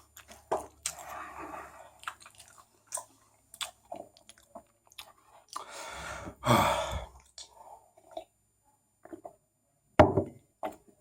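A person chewing a mouthful of chicken sandwich close to the microphone, with wet mouth smacks and clicks, a louder burst about six and a half seconds in and a sharp one near the end.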